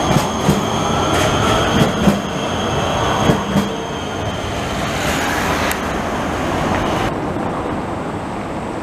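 Škoda 14T tram passing close, its wheels knocking several times over rail joints in the first few seconds, with a steady high whine running over the rolling noise. About seven seconds in, the sound cuts to a quieter, even street hum.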